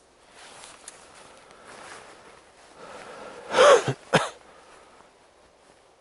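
A person sneezing loudly about three and a half seconds in, amid soft rustling of walking through tall grass.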